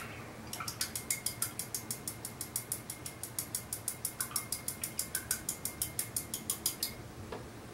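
Watercolour brush being swished in a small glass jar of rinse water, tapping against the glass in a rapid, even clicking of about six taps a second that stops about seven seconds in.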